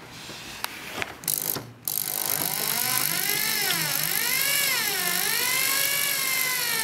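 Bosch GSB 18-2 RE drill starting up about two seconds in, after a few light clicks, and running at low speed with its motor pitch wavering up and down. It is drilling out a hardened steel screw with a small cobalt HSS bit, kept slow so the metal does not burn and work-harden.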